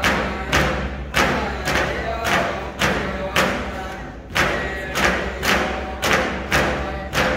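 Several Eskimo frame drums struck together in a steady beat, a little under two strikes a second, each strike ringing out. Faint singing voices carry on between the strikes.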